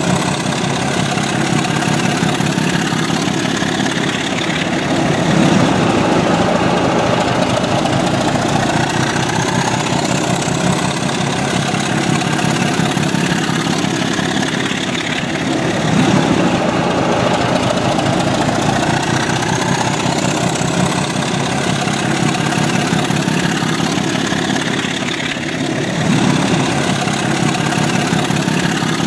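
Diesel locomotive engine sound for a model BR Class 27, running steadily. It swells about every ten seconds, with a faint rising whine high up that recurs on a similar cycle.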